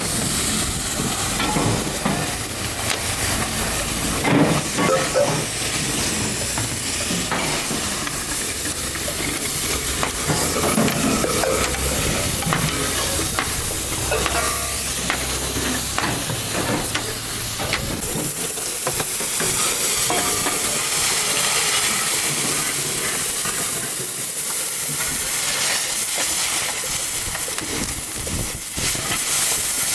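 Gas cutting torch cutting through the steel body of a large compressor: a steady hiss with scattered cracks and knocks. A low rumble under it stops about two-thirds of the way through.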